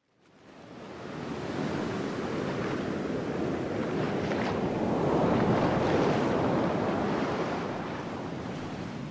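Sea waves washing onto a sandy beach, a steady rushing surf sound. It fades in over the first second or so and fades out near the end.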